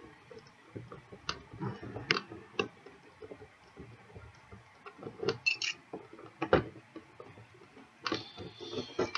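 A key picking and scraping at sticky tape on a cardboard figure box: irregular clicks, taps and scratches, with a longer scraping, tearing stretch near the end as the tape gives way.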